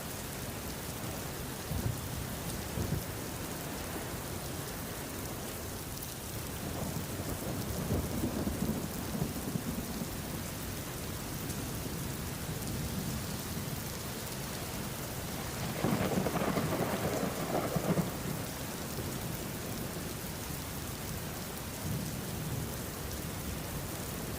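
Steady rain with rolling thunder: a soft rumble swells a few seconds in, and a louder roll of thunder comes a little past the middle.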